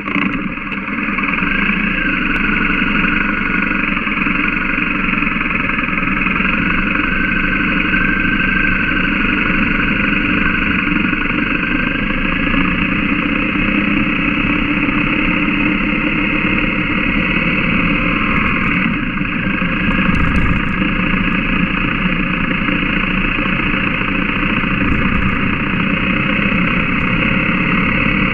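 BMW GS Adventure motorcycle's boxer-twin engine running steadily at low speed on a dirt track.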